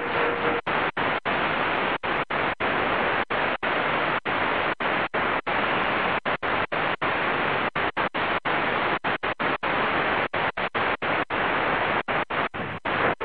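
Shortwave static hiss from a Qodosen DX-286 receiver's speaker as it is tuned up the 19-metre band, chopped by brief dropouts about three times a second as the frequency steps. A faint steady whistle stops within the first second.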